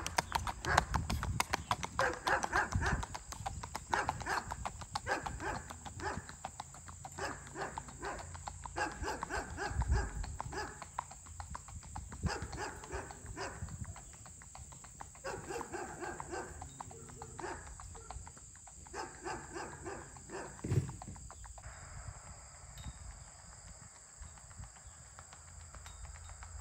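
Horse's hooves clip-clopping in a quick, even rhythm on asphalt, growing fainter after about halfway as the horse moves off down the road. Short pitched calls recur every second or two through most of it, and there is a single thump near the end.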